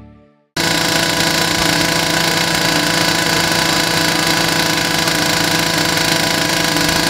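Loud, steady, engine-like machine noise with many constant droning tones, cutting in suddenly about half a second in. It is the background noise for a radio noise test.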